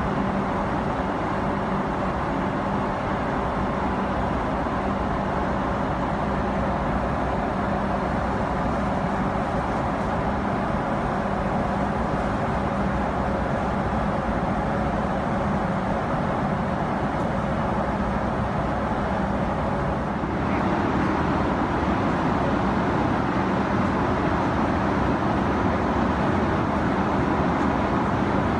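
Steady cabin noise of a Boeing 777-300ER in cruise: the rush of air along the fuselage over the hum of its GE90 engines, with a low steady drone. It gets slightly louder about twenty seconds in.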